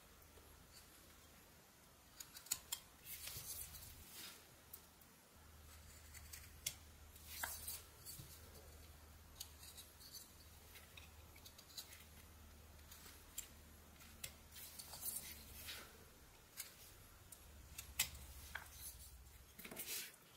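Whittling knife slicing and shaving eastern white pine: short, sharp cuts and scrapes at an irregular pace, some louder than others, over a faint steady low hum.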